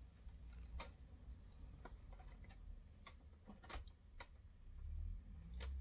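Faint, irregular clicks and light taps, about six in all, of a small bolt and the desk fan's guard being handled and fitted together.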